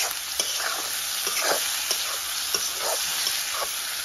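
Chicken pieces frying in oil in a metal kadai, a steady sizzle, while a spatula scrapes and turns them about twice a second.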